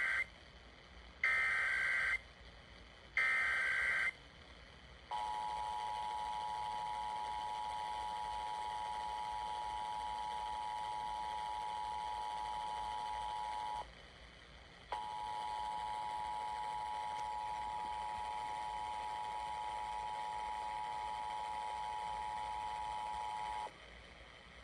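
Emergency Alert System header: the tail of one SAME data burst and then two more short warbling data bursts, followed by the EAS two-tone attention signal, a steady dual tone that sounds for about nine seconds, breaks off for a second, and sounds again for about nine seconds. It marks the start of a Required Monthly Test of the alert system.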